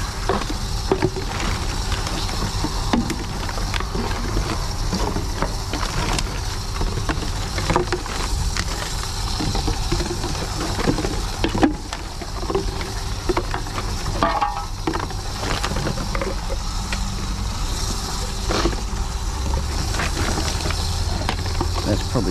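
TOMRA reverse vending machine running with a steady hum while empty plastic bottles are pushed one by one into its intake, with irregular clicks, knocks and crinkles of plastic as each bottle goes in.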